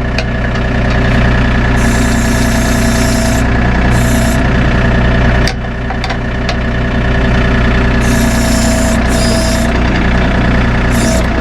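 John Deere 3025E compact tractor's three-cylinder diesel running steadily while the backhoe is worked back to its storage position, with four short bursts of hiss as the hydraulics are operated. A sharp knock at the start and another about halfway through.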